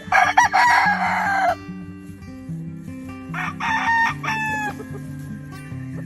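Rooster crowing twice: a loud crow in the first second and a half, then a second crow about three seconds in, over background music.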